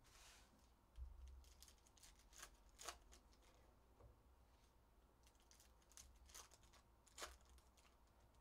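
Faint handling of foil trading-card packs and cards on a table: a few short crinkles of foil wrappers and soft taps as packs are stacked and cards slid.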